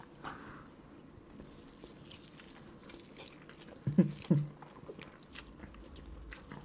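Mouth sounds of people eating noodles by hand: faint wet chewing and slurping clicks throughout, with two short louder sounds about four seconds in.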